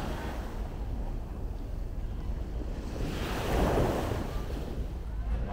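Small waves washing in shallow surf, with wind buffeting the microphone; a louder rush of water swells up about three and a half seconds in.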